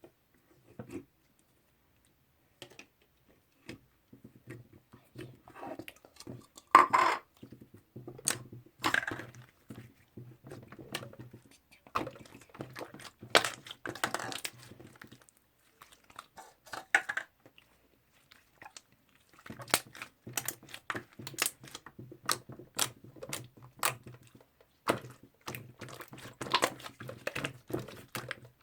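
Toffee slime being handled: irregular sticky clicks, pops and short crackles as it is pressed and pulled, with a few louder snaps.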